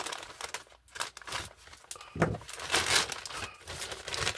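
Plastic poly mailer bag crinkling as it is cut open with scissors and pulled apart, with irregular rustles and crackles of the plastic, loudest a little past two seconds in.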